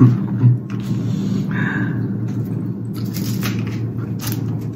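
Steady low rumble with a few short clicks and crackles over it.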